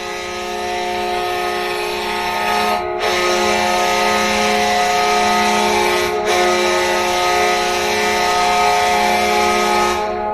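Florida Panthers' arena goal horn sounding in long steady blasts, broken twice by brief gaps, and fading out at the end.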